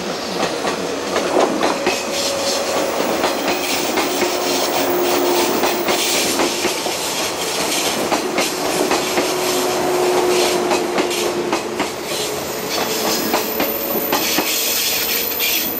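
Resort Yamadori, a converted 485-series electric multiple unit, passing close by. Steady rolling noise of wheels on rail, with repeated clicks as the wheels go over the rail joints, and twice a faint held tone.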